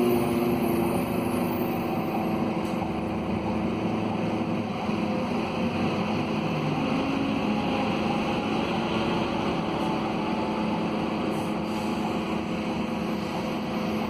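Scania DC09 five-cylinder diesel of a city bus running steadily while the bus drives, heard from inside the passenger cabin, with road and tyre noise underneath.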